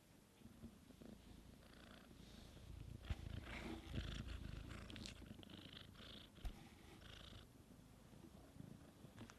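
Bengal cat purring softly, loudest in the middle few seconds, with faint scuffling noise over it.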